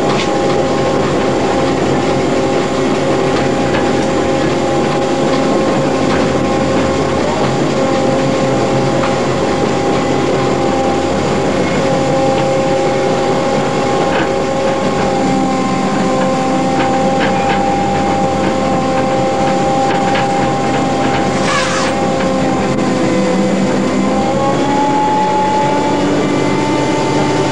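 Pemberton tourist tram running along the line at a steady speed: a continuous drive hum with two whining tones that rise slightly in pitch near the end.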